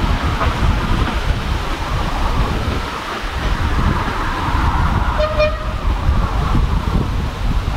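Steady low rumble of a train on the move, with a short steam whistle toot about five seconds in.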